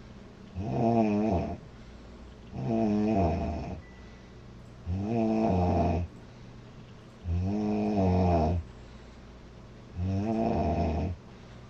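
A woman snoring loudly in an even rhythm: five snores about two seconds apart, each lasting about a second, with a pitched tone that wavers up and down.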